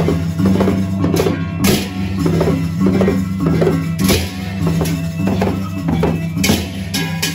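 Gendang beleq ensemble playing: large barrel drums and clashing pairs of hand cymbals (ceng-ceng) in an even pulse of about three strokes a second, over a steady low drone, with a brighter cymbal crash about every two and a half seconds.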